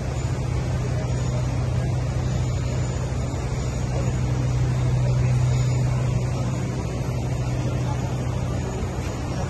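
A steady low mechanical hum: one constant low drone over a wash of noise, unchanging throughout.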